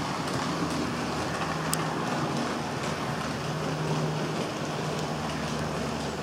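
Roco HO-scale model class 50 steam locomotive running along the track, its electric motor and wheels on the rails making a steady running noise. A low hum fades in and out.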